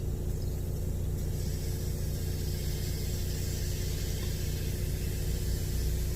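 Steady low mechanical hum, like an idling engine, holding the same pitch throughout with a faint even hiss above it.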